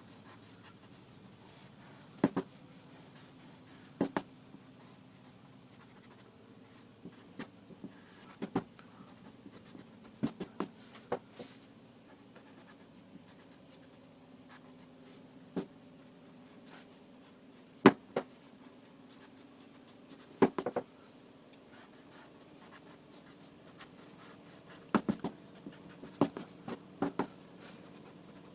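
Irregular sharp clicks and scratchy taps, singly and in quick clusters, over a faint steady hum.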